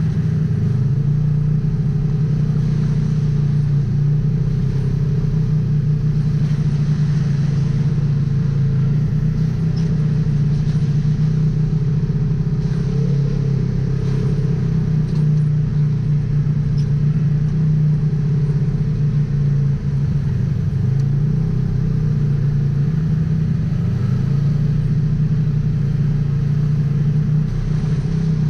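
Polaris RZR XP 1000 side-by-side's engine running at fairly even revs, a steady low drone with small rises and dips in pitch.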